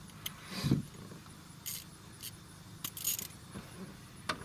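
Small metal hand tools clinking as they are handled: a few separate sharp clinks, a dull knock early on, and a short metallic jingle about three seconds in.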